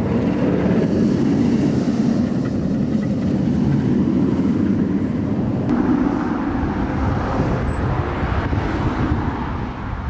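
Empty test train on a Bolliger & Mabillard hyper coaster running along the steel track, a steady loud rolling rumble. The sound turns brighter and hissier about six seconds in.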